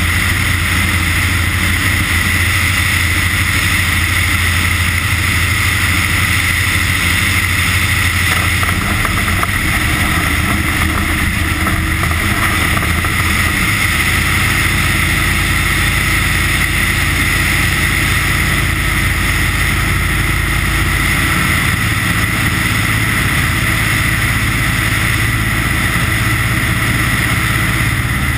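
Ski plane's piston engine and propeller running steadily as the plane moves on its skis over snow, the engine note stepping up in pitch about halfway through.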